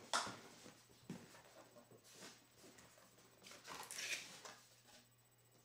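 Cardboard motherboard box being opened by hand: a sharp tap at the start, then scattered scrapes and rustles of cardboard, the longest and loudest about four seconds in.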